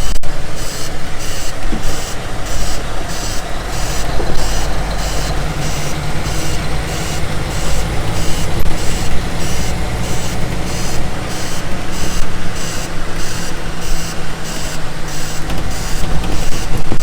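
Vehicle engine running steadily with a low drone, alongside a regular high-pitched pulsing at about two a second.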